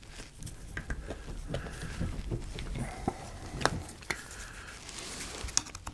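Rubber steering-rack boot being worked off the end of a power steering rack by gloved hands: short rubbery squeaks and rubbing, with scattered small clicks and knocks, a few sharper ones near the end.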